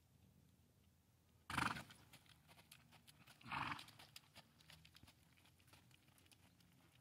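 Faint hoofbeats of a young quarter horse trotting on soft arena dirt, with two short, loud bursts of noise about two seconds apart.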